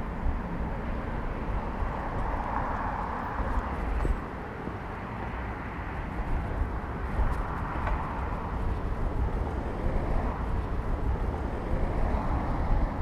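Wind rumble on the microphone of a moving bicycle, with street traffic noise that swells and fades a few times as vehicles pass.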